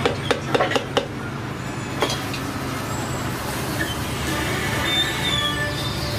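Metal cooking utensils knocking at a crepe griddle: several sharp clicks in the first second and one more about two seconds in, over a steady low hum.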